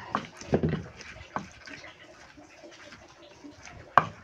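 Wooden pestle (ulekan) grinding wet chilli-and-tomato sambal in a cobek mortar: uneven squishing and scraping with a few sharp knocks of the pestle, the sharpest just before the end.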